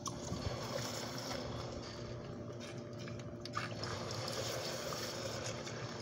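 A steady rushing hiss with a low hum under it, and a few light metallic clinks as steel tongs grip and lift a hot crucible at a small forge.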